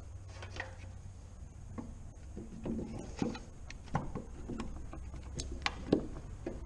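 Plastic tail-light unit of a Suzuki Vitara clicking and knocking against the body as it is pushed by hand into its opening, with several sharp clicks, the loudest near the end. A low steady hum runs underneath.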